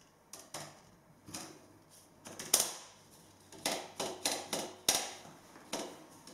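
Irregular clicks and knocks of small parts being handled and screwed into place by hand. The loudest is a sharp knock about two and a half seconds in.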